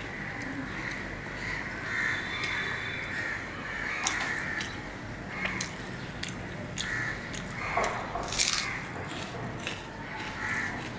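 Crows cawing over and over in the background, with soft clicks and squelches from a hand mixing biryani rice on a plate. The loudest clicks come about four and eight seconds in.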